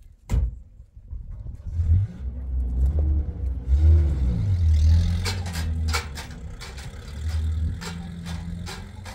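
Van engine running, its pitch rising and falling as it revs between about two and four seconds in, then running steady. A string of sharp knocks and clatters sounds over it from about five seconds on.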